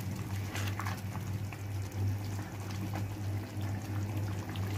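Rice pulao boiling in a wide pan, the water bubbling steadily, with a few light clicks of a spoon being worked through the rice, over a steady low hum.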